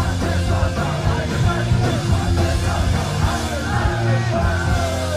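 Punk band playing live with drums and guitar, a vocalist yelling into the microphone over the music.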